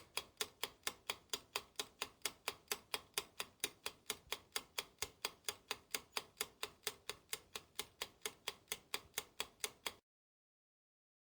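Clock-ticking sound effect: even, sharp ticks at between four and five a second, which stop abruptly about ten seconds in.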